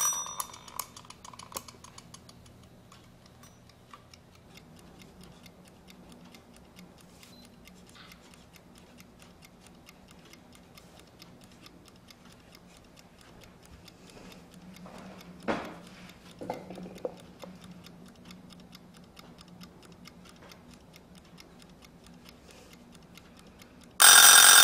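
Lux Minute Minder wind-up kitchen timer: the dial clicks as it is turned, then the timer ticks steadily. Near the end its bell rings loudly.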